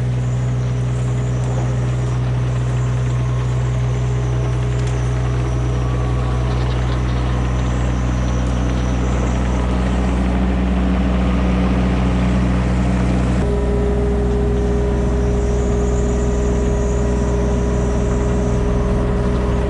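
Mini excavator's diesel engine running steadily. About two-thirds of the way in, the engine note changes and a steady higher whine joins it.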